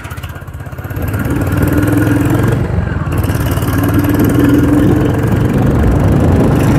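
Motorcycle engine running on the move, with wind noise, as picked up by the rider's Bluetooth clip-on mic. It gets louder over the first second or so and then holds steady.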